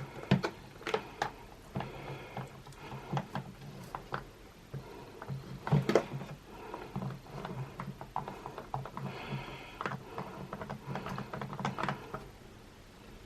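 Clear crystal slime mixed with Orbeez water beads being squeezed and worked by hand, giving a run of irregular wet clicks and pops.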